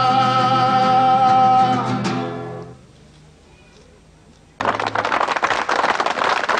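Men's voices singing together, holding the last chord of the song and fading out about two and a half seconds in. After a quiet pause, a sudden burst of clapping and crowd noise breaks in near the end.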